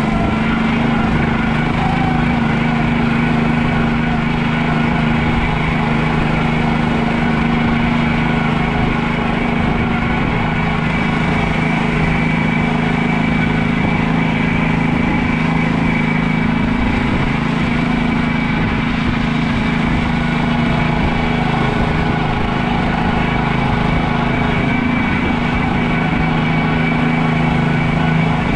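PermaGreen Triumph ride-on spreader's small engine running steadily at a constant speed as the machine drives across the lawn, with a steady high whine over the engine note.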